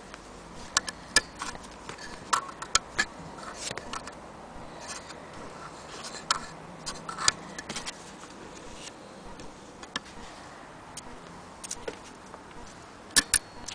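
Irregular light clicks and taps of hand and camera handling around a small metal sewing machine, scattered unevenly over a faint steady hiss.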